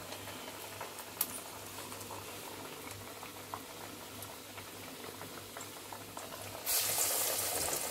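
Lentil vadas deep-frying in hot oil: a steady bubbling sizzle with small crackles. Near the end the sizzle turns suddenly louder.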